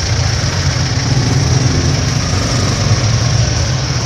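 Steady low rumble of a car running, heard from inside its cabin.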